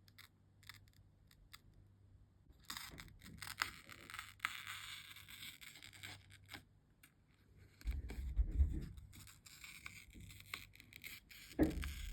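Slime being handled: a few sharp clicks, then a stretch of dense crackling from about three seconds in, then a few low thumps near the end.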